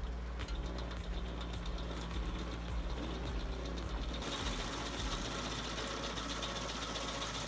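An engine running steadily with a low, even drone, then the sound changes abruptly about four seconds in to a brighter, noisier machine sound.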